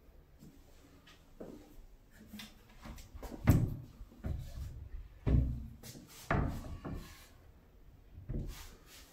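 Built-in wooden cabinet doors being opened and shut, giving a string of knocks and thumps; the loudest comes about three and a half seconds in, with a few more after it.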